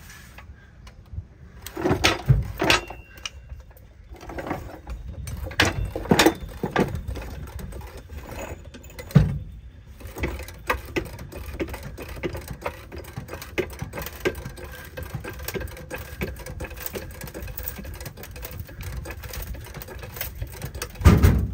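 A jack being worked under the front of a travel trailer to lift it: a few heavy knocks and clanks, then a long run of fast light mechanical clicking, with another heavy knock near the end.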